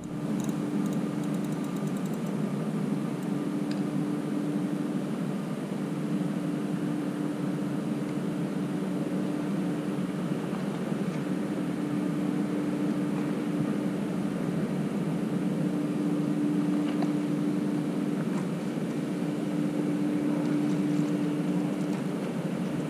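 A steady mechanical drone with a constant low hum, unchanging throughout.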